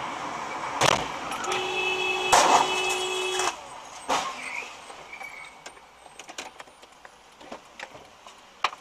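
Road collision: a sharp crash about a second in, then a car horn held for about two seconds, with a second, louder impact partway through it. Another knock follows, and then scattered light clatter.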